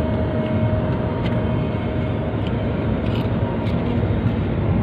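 Steady road and engine noise of a moving car, heard from inside the cabin, strongest at the low end.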